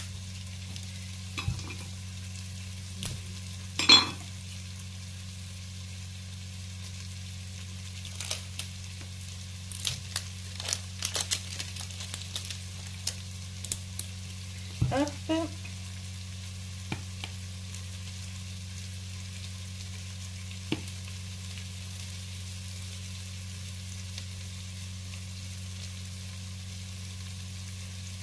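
Chopped onion and shallot sizzling in butter in a Cookeo multicooker's bowl on browning mode, a steady frying hiss over a low hum. Scattered clicks and knocks come through, loudest about four seconds in and clustered around the middle.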